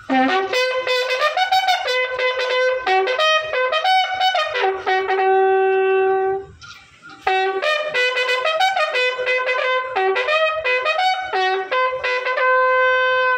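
A bugle sounds a salute call for a police guard of honour presenting arms. It plays two phrases of quick rising and falling notes, each ending on a long held note, with a short break between them about six and a half seconds in.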